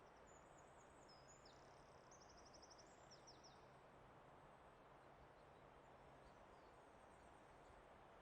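Very faint forest ambience: a soft steady hiss, with a small bird's quick high chirps and trills during the first three seconds or so.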